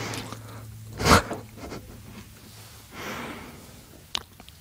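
A man breathing into a close microphone: a sharp, loud breath about a second in, a softer breath near three seconds, and a small mouth click shortly before the end, over a low steady hum.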